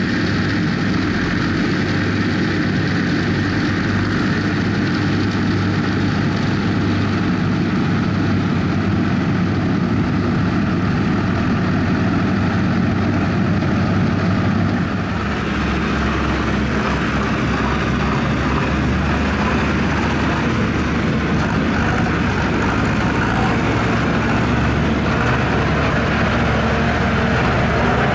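Farm tractors' diesel engines running steadily while harvesting sugar beet. About halfway through the sound changes to a deeper, steady engine note.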